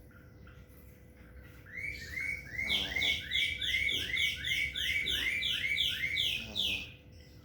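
A bird calling a rapid run of about fifteen repeated down-slurred chirps, about three a second, starting a couple of seconds in and stopping near the end. Underneath, a sleeping cat's snoring breaths can be heard faintly.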